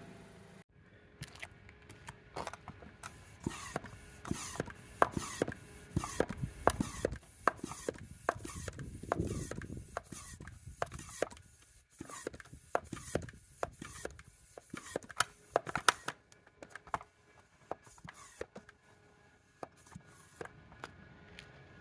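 Many irregular clicks, knocks and rubbing of tools and parts being handled, starting just after a running car engine stops about half a second in.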